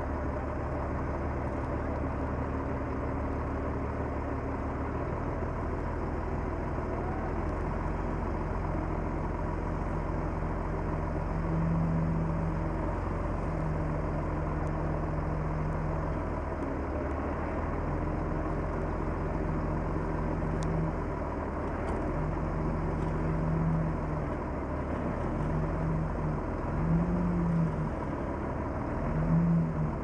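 Diesel engine of a Komatsu D31P crawler bulldozer running steadily. From about a third of the way in, its note swells and drops again and again as the machine works the dirt, more often toward the end.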